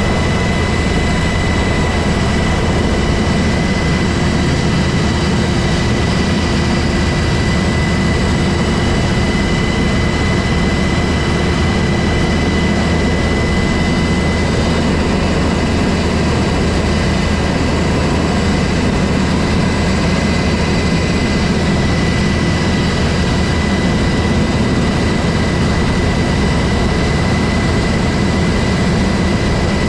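Cabin of a UH-60 Black Hawk helicopter with the door open, its twin T700 turboshaft engines and rotor running steadily as it taxis: a constant high turbine whine over a dense, heavy rumble.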